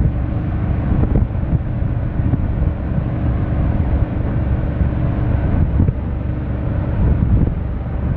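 Aluminum bass boat running at about 50 mph with its Mercury four-stroke 150 outboard at wide open throttle: a loud, steady rush of wind over the microphone and hull noise, with the engine's drone underneath.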